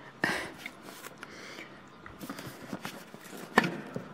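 Handling noise from a handheld camera being picked up and turned around: a short rustle near the start, small clicks, and one sharp knock about three and a half seconds in.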